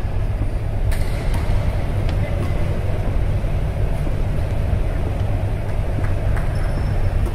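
Steady low rumble filling a large sports hall, with a few faint knocks of a basketball bouncing on the court during a pickup game.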